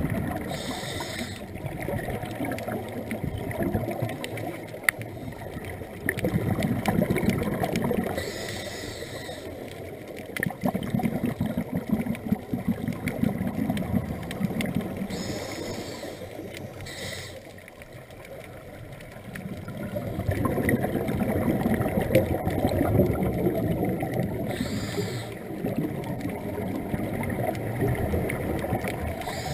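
Scuba regulator breathing heard underwater: a short hiss with each inhalation every several seconds, and longer stretches of low, rumbling bubble noise as the exhaled air escapes.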